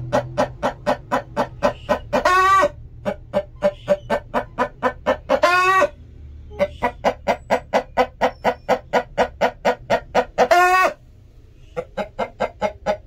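Chicken clucking: rapid, evenly spaced clucks at about five a second, broken three times by a longer drawn-out call, with a short pause about eleven seconds in.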